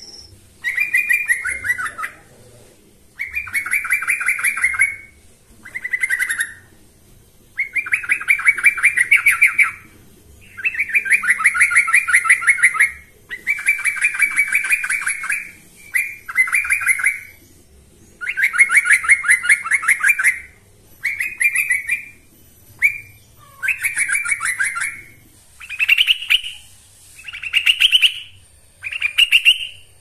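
Male yellow-vented bulbul singing its challenge to rivals: bursts of rapid, bubbling notes, each one to two seconds long, repeated about every two seconds, with the last few near the end shorter and higher-pitched.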